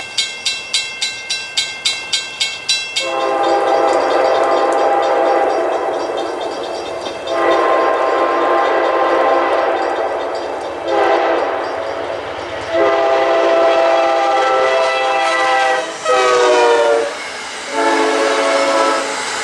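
Grade-crossing bell dinging about three times a second, then an Amtrak locomotive's multi-note air horn sounding a run of long blasts with one short among them, the crossing signal. Its pitch drops as the locomotive passes, about 16 seconds in, while the passenger cars roll by.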